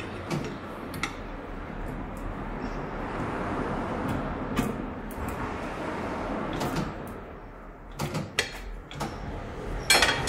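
A tyre being fitted onto an alloy wheel on a tyre-changing machine: a steel tyre lever knocks against the rim while the tyre rubs and grinds over it, with a run of clinks late on and a loud metal clank at the very end.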